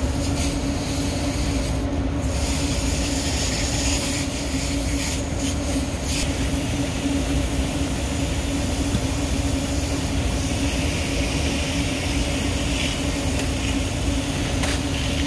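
Steady mechanical hum and rushing noise of rooftop HVAC equipment running, with a few light rubs and knocks as pleated air filters are slid into a package unit's filter rack.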